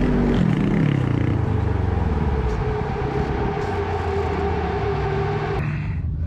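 A vehicle engine running, its pitch falling over about the first second and then holding steady, under heavy rushing noise. The sound changes abruptly near the end.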